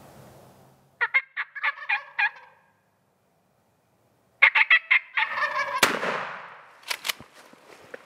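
Wild turkey gobbler gobbling twice: a rapid rattling gobble about a second in and a louder one about four and a half seconds in. A sharp snap follows near the end of the second gobble.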